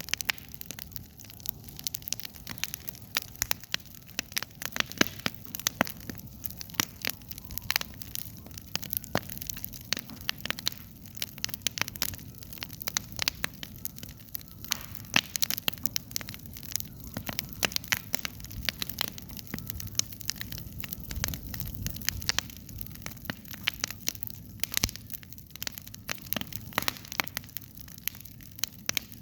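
Campfire crackling: frequent irregular pops and snaps over a low steady rumble.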